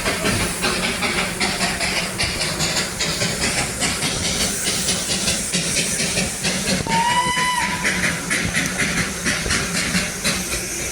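Darjeeling Himalayan Railway steam locomotive puffing in a quick, even rhythm with a hiss of steam, and sounding one short whistle blast about seven seconds in.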